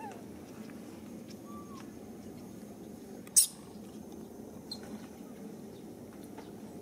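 Faint squeaks from long-tailed macaques and their infants, with one short, sharp high-pitched sound about three and a half seconds in, over a steady low background noise.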